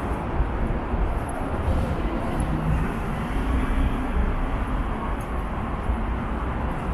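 City street ambience: a steady rumble of road traffic with no distinct events.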